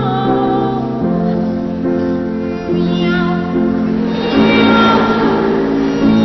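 A boy treble sings comic cat-like meows in a wavering melodic line over piano accompaniment, the sound getting louder and fuller about four seconds in.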